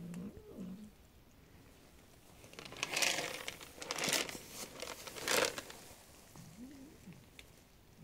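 Three bursts of plastic crinkling and rustling as a plastic jug is handled, about three, four and five and a half seconds in. A pigeon coos at the start and again near the end.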